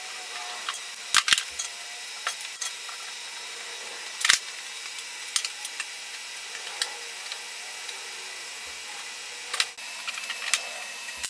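Irregular clicks and light metal knocks from steel square tubing being handled and clamped with one-handed bar clamps. The loudest knock comes about four seconds in, and a denser stretch of noise follows near the end.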